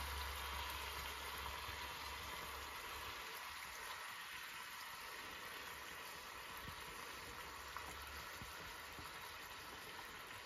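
Faint, steady sizzling and bubbling from a pan of fried chicken cooking on the stove as yogurt masala is poured over it, growing slightly quieter.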